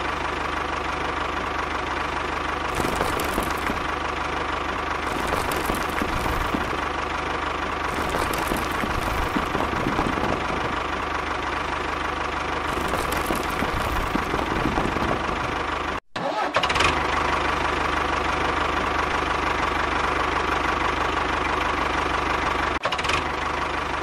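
DIY mini bulldozer-tractor's motor running steadily with an even, engine-like drone and a steady high tone, cutting out for a moment about two-thirds of the way through, then resuming.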